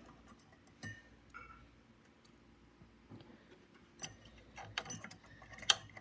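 Faint scattered clicks and taps of a plastic CPU heat-sink retention latch and fingers against the finned aluminium heat sink as the latch is fitted back on: a single click about a second in, then a cluster of sharper clicks in the last two seconds, the loudest just before the end.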